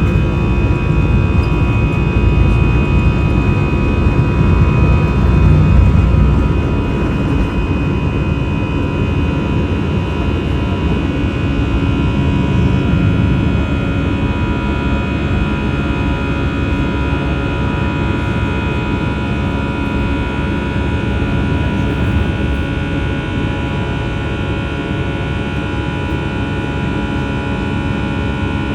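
Jet airliner engines running steadily: a deep rumble under a steady high whine. The rumble eases a little about six seconds in.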